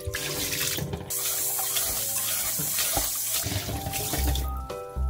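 Water pouring and splashing in a sink as rinsed somyeon noodles and their cold rinse water are tipped into a stainless mesh strainer, with a strong rush of water for a couple of seconds from about a second in.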